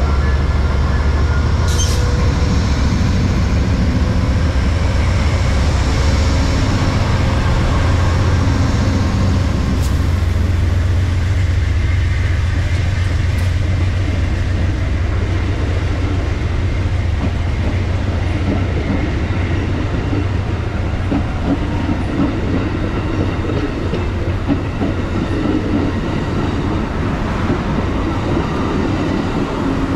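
Amtrak P42 diesel locomotives running past with a deep engine rumble, followed by passenger cars rolling by with steady wheel-on-rail noise and clickety-clack.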